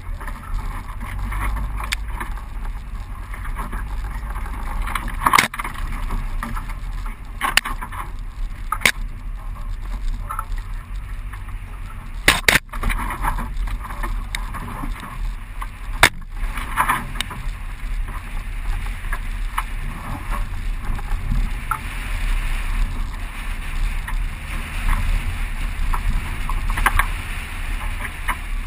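Suzuki four-wheel drive driving along a rough sandy bush track: a steady low rumble from the vehicle, broken by several sharp knocks and rattles as it jolts over bumps.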